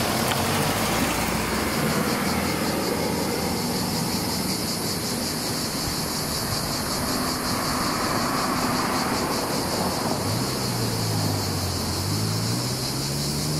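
Passing street traffic: cars going by, with a vehicle's engine rising in pitch as it pulls away about ten seconds in. A steady, high, pulsing insect chirr sounds throughout.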